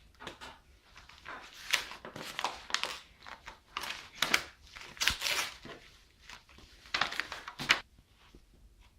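A series of irregular rustles, scrapes and knocks from objects being handled, with several louder strikes through the middle.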